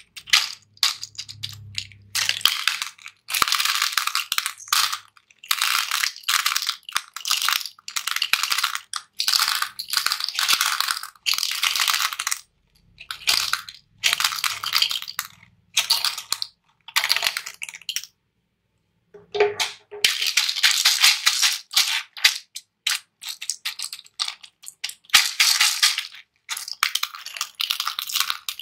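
Small hard candies pouring from a plastic bottle and rattling into a plastic tray, in repeated pours that stop and start, with a pause of about a second just after the middle.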